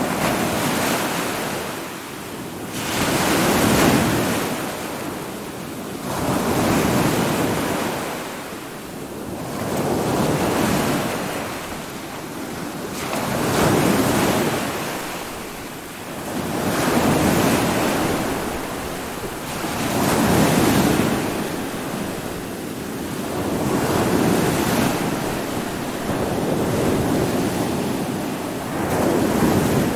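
Stormy sea: heavy waves surging and breaking in slow swells about every three seconds, with wind.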